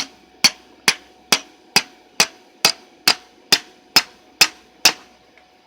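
Hammer blows on a flattened steel pipe set over a knife tang, driving a hot steel guard down onto the tang: about a dozen sharp, evenly spaced metal strikes, a little over two a second, stopping about a second before the end.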